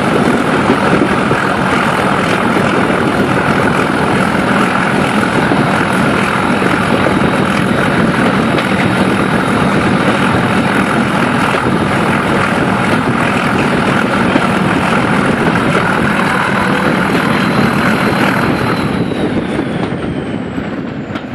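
Brush Class 31 diesel locomotive's English Electric 12SVT V12 engine working hard under power, a loud steady drone with a high turbocharger whistle, heard close up from the coach window just behind it along with wind rush. Near the end the whistle falls in pitch and the engine sound eases as power comes off.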